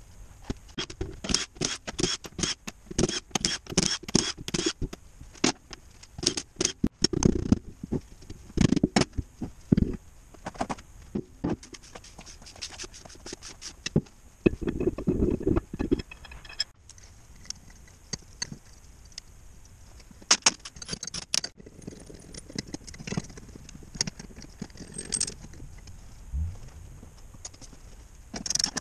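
Metal parts of a JATCO JR403E automatic transmission being handled on a steel workbench during teardown: a quick run of light clinks and rattles for the first ten seconds, a longer scrape about halfway through, then a few scattered clinks and a dull thump near the end.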